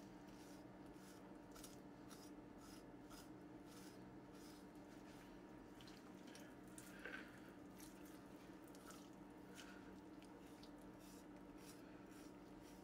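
Faint sounds of a kitchen knife slicing through the fat of a raw pork shoulder on a wooden cutting board: soft, irregular clicks and wet squishes over a steady low hum.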